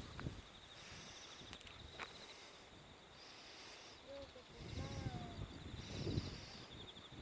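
Crickets trilling in a steady pulsing chirp. About halfway through comes a louder patch of low rustling noise, along with a couple of short whistled notes.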